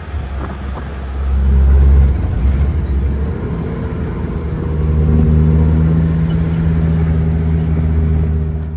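Vehicle engine running under way: a steady low drone that swells about two seconds in and shifts up in pitch about five seconds in.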